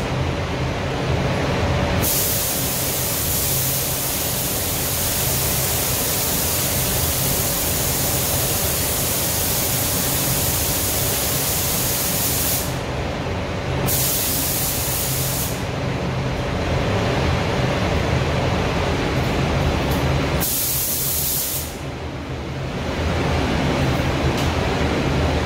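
Compressed air hissing from a paint spray gun in long trigger pulls, stopping briefly a few times, over the steady drone of the paint booth's air-handling fans.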